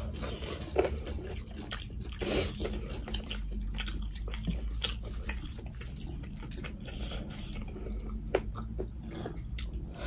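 Close-up wet eating sounds of two people eating rice and fried chicken with their hands: chewing, lip smacks and slurps, with scattered short clicks. A steady low hum runs underneath.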